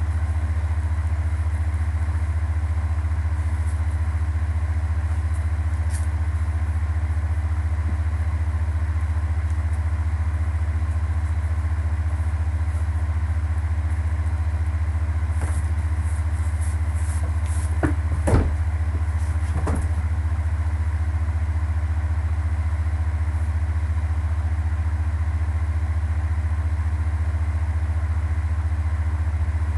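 A loud, steady low hum with no change in pitch or level. About halfway through come a cluster of faint clicks and then two sharper knocks, roughly two seconds apart.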